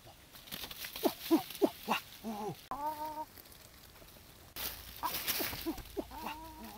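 Hen clucking and squawking in a series of short calls, with a burst of rustling about five seconds in.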